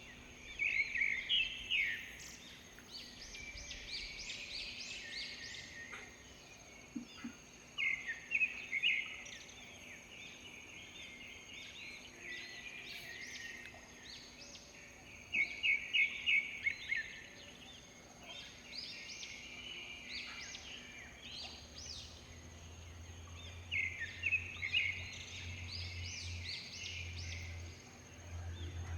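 Songbirds singing in the open countryside: bursts of quick, repeated chirping phrases come every few seconds. They sit over a steady, thin, high-pitched tone, and a low hum comes in about two-thirds of the way through.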